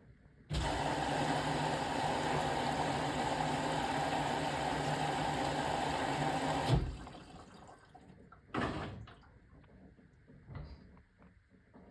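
Beko BM3WT3741W washing machine filling with water: the inlet valve opens with a steady rush of water and a low hum for about six seconds, then shuts off abruptly. Two short rushes of water follow.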